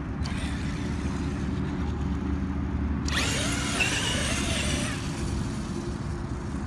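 Traxxas X-Maxx 8S electric RC monster truck driving on grass; about three seconds in, its brushless motor whines up sharply for about two seconds as the truck accelerates hard into a wheelie, over a steady low rumble.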